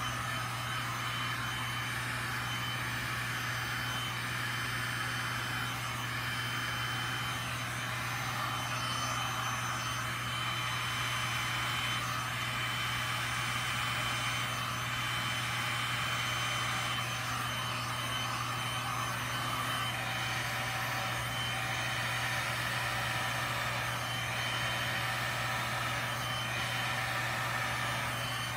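Heat gun running steadily, its fan blowing hot air over wet resin to warm it so it flows. A constant low hum and rush of air, with a thin steady high tone on top.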